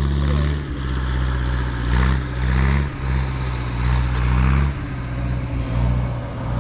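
A vehicle engine running steadily with a low hum that shifts slightly in pitch a few times, and two spells of rushing, rattling noise about two and four seconds in.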